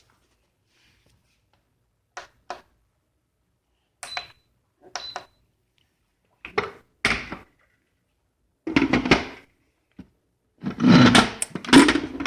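Clicks and two short beeps from the electric pressure cooker's control panel as the soup and stew setting is chosen, then knocks and a louder clatter of the lid being set on and turned into its lock position.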